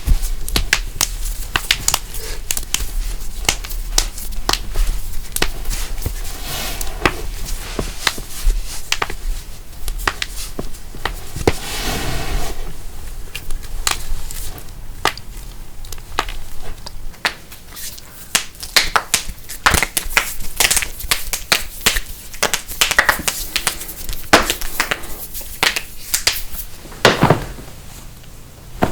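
Human joints cracking and popping: a rapid series of sharp cracks, many in quick succession. There is a longer crunching stretch around the middle and a deeper pop near the end.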